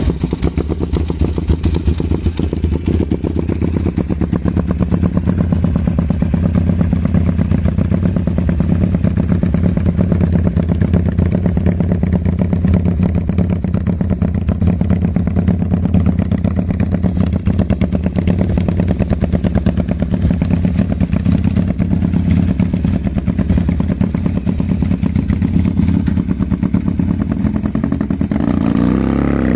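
Custom 400 cc V-twin engine built from Honda Tiger parts, running on a single carburettor, idling steadily on a test run with a fast, even firing pulse and some mechanical clatter.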